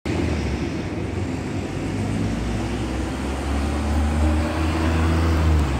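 A motor vehicle's engine running close by in street traffic: a low, steady hum that grows louder near the end.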